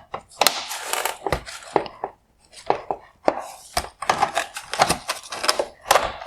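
Plastic clicks, knocks and scraping as the headlight's bottom projector mount is handled: its tabs squeezed and the mount worked forward out of the plastic housing. Many sharp clicks in quick, irregular succession.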